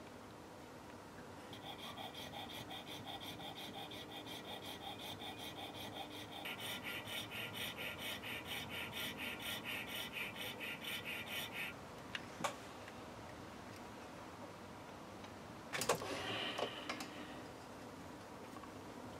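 Small powered scroll saw running with a steady whine that pulses about three times a second. It grows louder partway through as the fine blade cuts a tiny model steering wheel, then stops. A sharp click follows, and later a short clatter.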